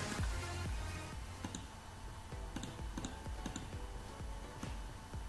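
Scattered clicking of a computer mouse and keyboard, a few clicks a second and uneven in spacing, over a low steady hum.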